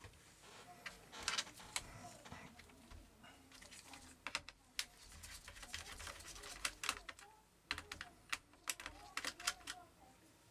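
Irregular light clicks and taps of a screwdriver and small parts against the plastic bottom case of an HP 2000 laptop as it is being taken apart.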